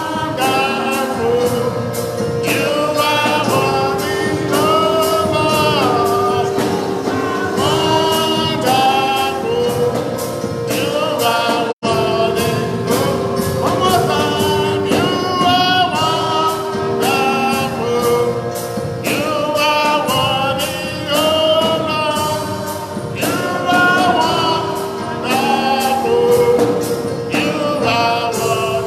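Gospel song with a choir of men and women singing over a steady beat and a held keyboard note. The sound drops out for an instant about twelve seconds in.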